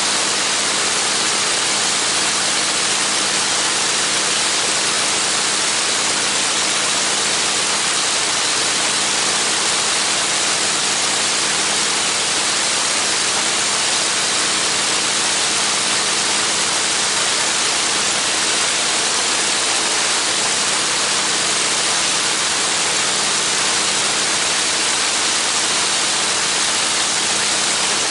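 Radial engine of a Spirit of St. Louis replica monoplane running steadily on the ground, propeller turning, a loud even drone with a rushing propeller wash.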